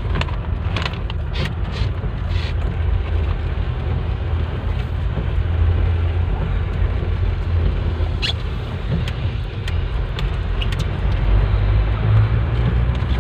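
Steady low rumble of a car's engine and road noise heard from inside the moving car, with a few light clicks and taps in the first couple of seconds and one about eight seconds in.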